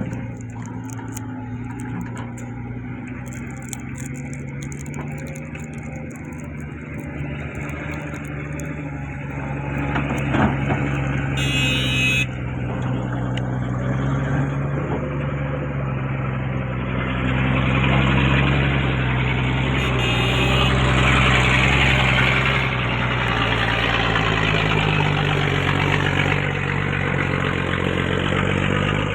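Bulldozer's large diesel engine running steadily, growing louder and harsher about halfway through and staying up.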